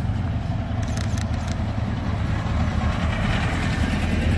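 Air-cooled flat-four engine of a vintage Volkswagen split-window bus running as it drives slowly past, a steady low rumble. A few light clicks about a second in.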